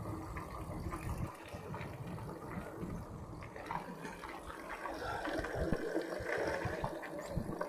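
Bicycle rolling over a rough track, with a steady rushing noise and frequent rattles and knocks from the bike.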